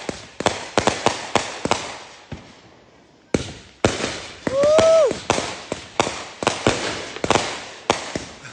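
Aerial fireworks firing in quick succession: a string of sharp bangs and cracks from shots and bursts overhead, with a short lull about two to three seconds in. About four and a half seconds in, a brief whistle rises slightly and then drops away.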